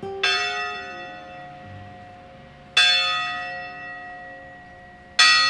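Church bell tolled three times at an even, slow pace, about two and a half seconds apart. Each stroke rings on and fades slowly, and all three are the same bell.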